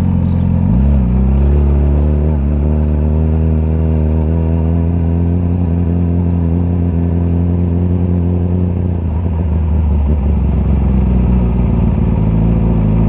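Yamaha R6 sport bike's inline-four engine running steadily while riding, with a brief rise and fall in pitch about a second in.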